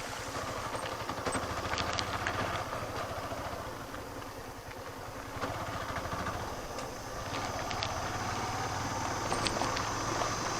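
Motorcycle engine running steadily at low speed, with light clicks and rattles, and a brief easing off near the middle.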